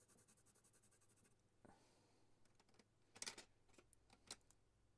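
Faint, rapid scratching of a coloured pencil shading on toned paper for about the first second, then a few light clicks as pencils are handled in a metal tin.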